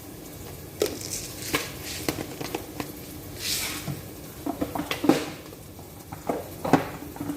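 Kitchen clatter as whole spices are added to a cooking pot: a scatter of sharp clinks and taps of utensils and containers, with a brief rustle a little past the middle.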